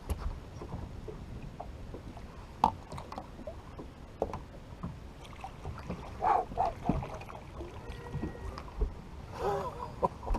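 Scattered light knocks and clicks on a fishing boat over a low background rumble, the sharpest knock about two and a half seconds in, with a few brief tonal sounds past the middle.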